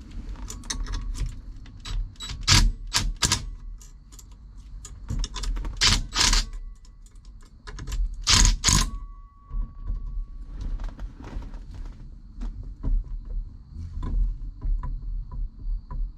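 Irregular clicks and sharp clacks of hard parts being worked on a steering wheel, with several loud clacks in the first nine seconds and lighter ticking after, as a part that will not sit tight is pushed and fitted.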